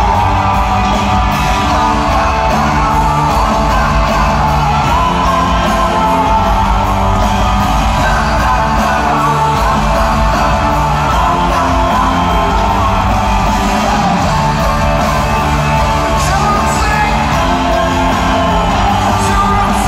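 A live rock band performing: a male lead singer sings long, wavering lines over electric guitar and drums.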